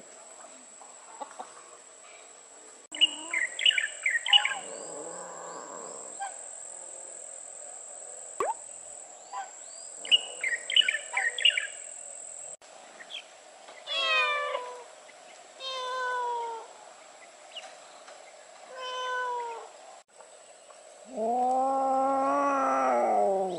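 Cats meowing: three short meows in the second half, then a long, loud, drawn-out meow near the end. Two earlier clusters of short high chirps sound over a steady high-pitched whine.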